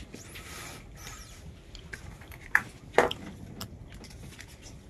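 Papers rustling as they are handled on a wooden table, with two sharp knocks from a hand stamp about two and a half and three seconds in.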